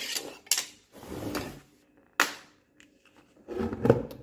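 Tools being set down and handled on a hard floor: a series of knocks and clatters, the sharpest a little past two seconds in and a short cluster near the end.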